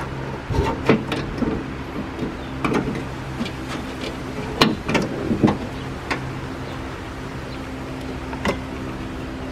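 Scattered clicks and knocks of a windshield wiper arm and blade being handled and set back in place against the plastic cowl, over a steady low hum.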